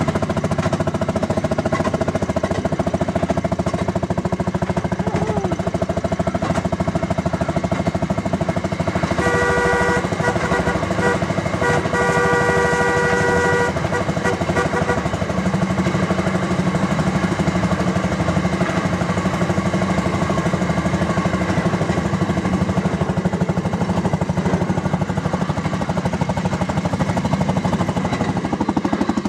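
Fairmont M9 motorcar's 8 hp Fairmont ROC single-cylinder two-stroke engine running steadily under way, a rapid even putt-putt of exhaust beats. About nine seconds in, a horn sounds in several short blasts and then one longer one.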